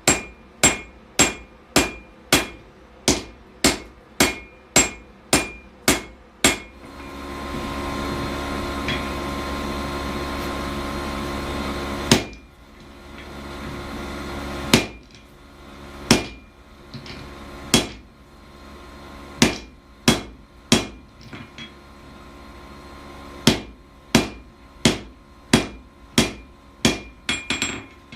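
Hammer blows on steel over an anvil while forging a froe, each strike ringing, at about two strikes a second. About seven seconds in they give way to a steady rushing noise lasting some five seconds. Slower, spaced blows follow, which quicken into another run near the end.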